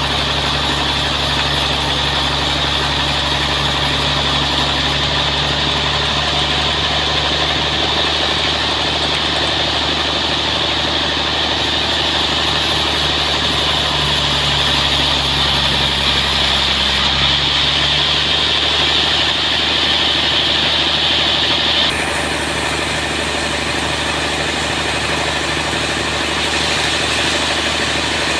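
Sawmill running steadily while sawing through a large trembesi (rain tree) log, a steady engine drone under a loud high cutting noise. The sound changes partway through, and the high cutting noise drops back a little later.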